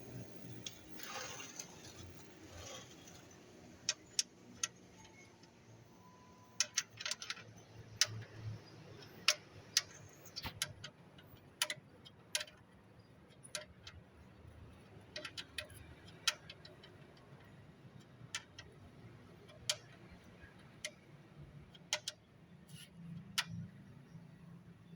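Irregular sharp clicks and ticks, one every half second to second and a half, over a faint low hum.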